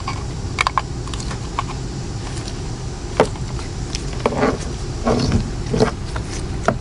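Scattered light clicks and rattles of plastic wiring-harness connectors being handled and plugged in, several close together in the second half, over a steady low hum.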